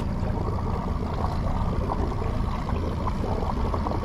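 Small boat's motor running steadily at trolling speed, a low drone, with water lapping and splashing against the hull.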